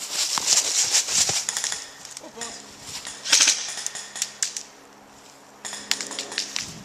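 Airsoft rifle fire: three bursts of rapid, clattering shots, the first about two seconds long at the start, another about three seconds in, and a shorter one near the end.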